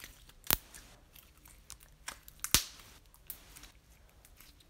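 Foam-bead slime being poked and squeezed in a plastic cup: scattered small crackles, with two sharper clicks, about half a second in and about two and a half seconds in.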